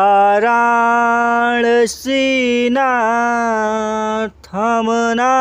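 A man singing a Sanskrit devotional verse to Shiva as Vishwanath, unaccompanied, drawing out the vowels in long held notes. He breaks briefly for breath about two seconds in and again near the end.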